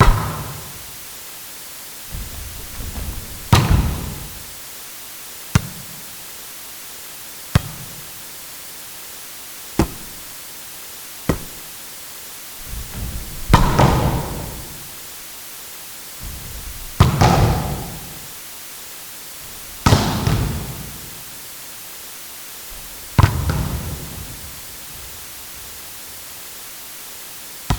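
Volleyball being struck hard, about ten separate hits a few seconds apart, the bigger ones echoing as in a gym hall. Several hits are led in by brief rustling.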